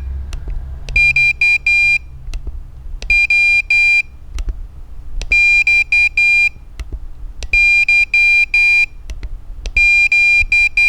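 Flipper Zero's built-in speaker beeping Morse code: groups of short and long high-pitched beeps (dots and dashes), about one group every two seconds. Sharp clicks fall in the gaps between the groups.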